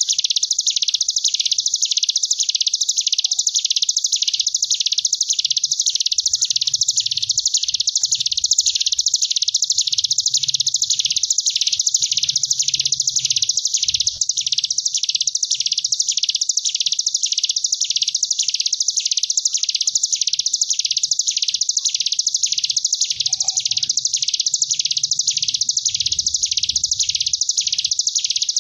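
Ciblek gunung (a mountain prinia) singing its 'ngebren': one unbroken, high, buzzing trill like a wasp. It swells and dips in waves about once a second, with no pause.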